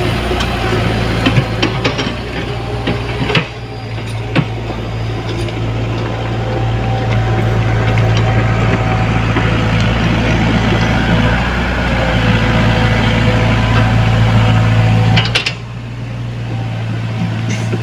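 Mini excavator's diesel engine running steadily under load, with a few sharp knocks. The sound drops abruptly about three seconds in and again near the end, then carries on.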